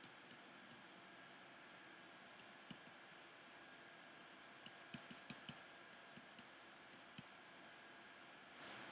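Near silence with faint, scattered clicks: a stylus tip tapping on a pen tablet while an equation is handwritten, including a quick run of taps about five seconds in.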